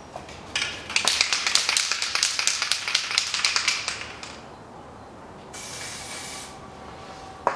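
Aerosol can of copper grease spraying onto bolts: a rapid, rattling hiss lasting about three seconds, starting about half a second in, then a shorter, even burst of spray about two seconds later.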